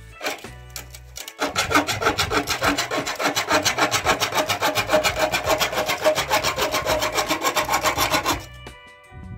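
A bare hacksaw blade sawing through the wall of a red plastic electrical back box, in rapid, even strokes. The strokes start about a second and a half in and stop shortly before the end.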